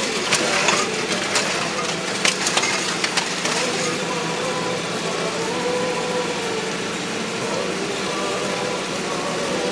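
Homemade off-road vehicle's engine running steadily while it pushes through frozen brush, with branches cracking and snapping against it during the first few seconds.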